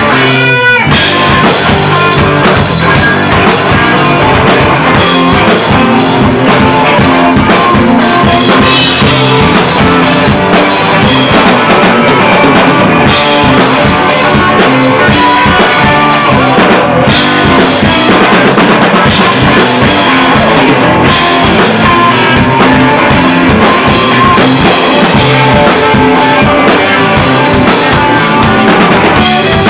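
Blues-rock band playing live: electric guitars, bass guitar and drum kit, loud and continuous.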